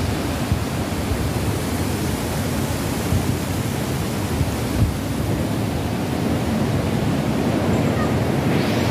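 Steady rushing of water, with a low, uneven rumble of wind on the microphone.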